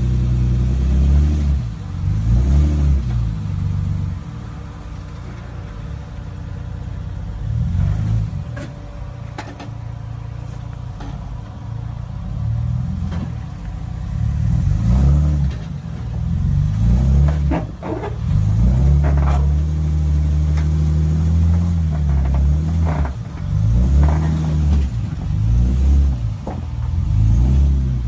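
Lifted Toyota FJ Cruiser's engine revving in repeated surges, pitch rising and falling as it crawls over boulders, with a few sharp knocks in the middle of the stretch.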